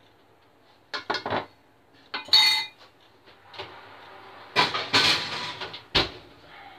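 Metal pans and an oven dish clattering: a few clinks about a second in, a ringing metal clang at about two and a half seconds, a longer clatter near five seconds, and a sharp knock about six seconds in as the oven door is shut.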